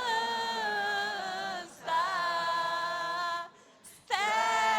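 A voice singing unaccompanied in long held notes: three sustained notes with short breaks between them.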